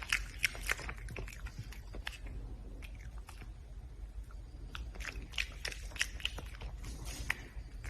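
Red panda chewing and crunching its food: irregular, wet crunches in bursts, busiest at the start and again in the second half, with a quieter stretch between.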